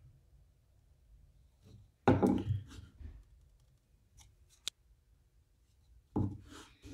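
Small handling noises at a wooden workbench as a super glue bottle and a folded piece of paper holding baking soda are picked up and set down: a short clatter about two seconds in, one sharp click near five seconds, and another clatter about six seconds in.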